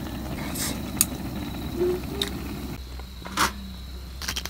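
Water boiling in a pot on a camp burner, a steady low bubbling rumble that stops abruptly about three seconds in. A few light clinks of tableware come on top of it.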